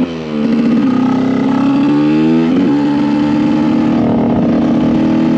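Two-stroke supermoto motorcycle engine heard onboard: the pitch drops after a gear change at the start, then the engine holds a steady cruising speed, with a brief throttle change about halfway after which it settles slightly higher.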